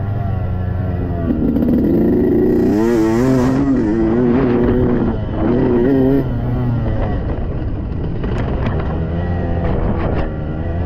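Yamaha YZ125X two-stroke dirt bike engine under hard riding, its pitch climbing and falling over and over as the throttle is worked. A few sharp ticks come in the last few seconds.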